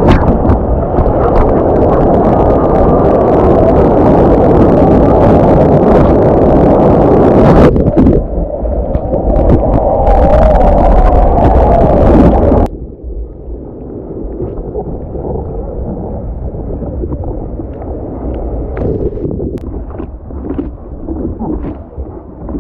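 Rushing whitewater and wind buffeting an action camera's microphone on the nose of a surfboard as it rides through broken surf. About 13 seconds in the noise drops sharply and turns muffled, losing its hiss.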